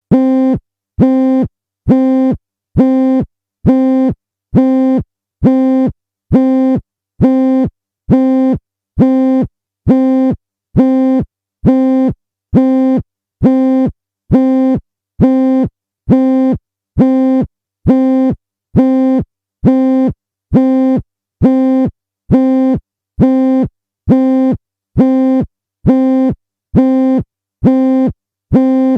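Emergency alarm tone: a loud, buzzy electronic beep on one low pitch, repeating steadily about once a second. It is the attention signal of an emergency alert warning.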